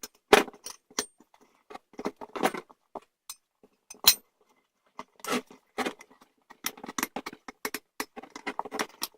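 A long pry bar clinking, knocking and scraping against a minibike wheel rim as an old tire is levered off, in irregular bursts of sharp metallic clinks and short rubbing scrapes.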